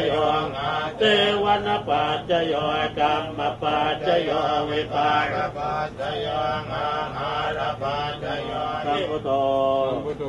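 Theravada Buddhist monks chanting in Pali, a continuous syllable-by-syllable recitation on a fairly steady pitch.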